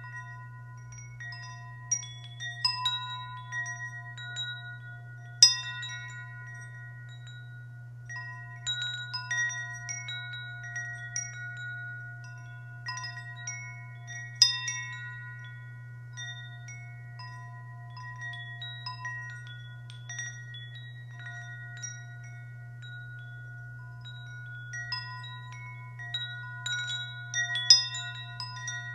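Wind chimes struck in irregular clusters, their tones ringing on and overlapping, with the sharpest strikes about five and fourteen seconds in, over a steady low hum.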